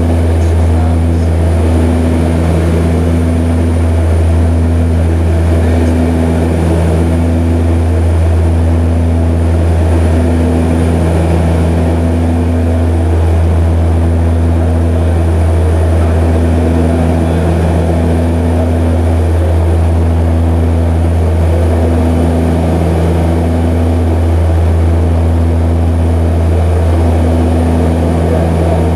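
Propeller aircraft engine droning steadily in flight, heard from inside the cabin. A higher hum swells and fades every second or two over the constant low drone.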